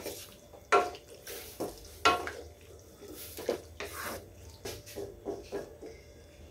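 Wooden spatula stirring squid and kamias in soy-sauce broth in a wok, with irregular wet scrapes and knocks against the pan. The loudest strokes come about a second and two seconds in, followed by several lighter ones.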